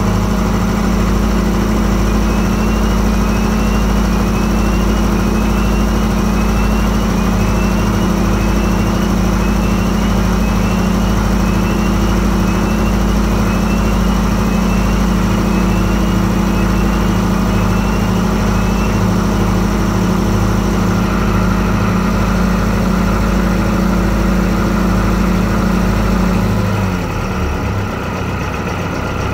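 Inboard marine diesel engine idling steadily just after a cold start. Near the end its pitch falls away as it is shut down.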